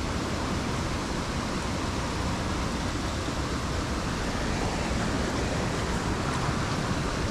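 Steady rush of flowing water from a waterfall and creek, an even hiss with no breaks.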